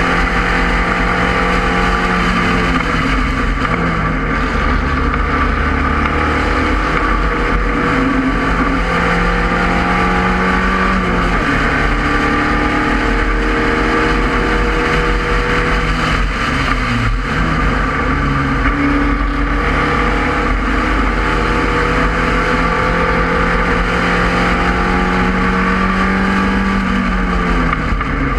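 Spec Racer Ford Gen 2's four-cylinder engine, heard onboard, running hard at racing speed. Its note climbs slowly through long pulls and drops sharply about three seconds in, around eleven and seventeen seconds, and near the end, where the driver shifts or lifts for corners.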